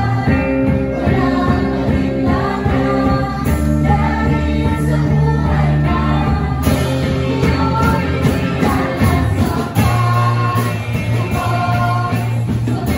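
A group of singers performing a Christian worship song live on microphones through a PA, backed by an amplified band with a steady bass and percussion.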